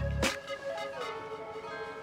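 Background music: a held melodic tone that steps down in pitch about a second in, with a drum hit near the start.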